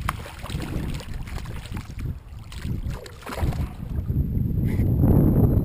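Water and handling noise at a kayak's side as a hooked redfish is pulled up by the line, with a sharp knock at the start. Wind rumbles on the microphone, growing louder from about four seconds in.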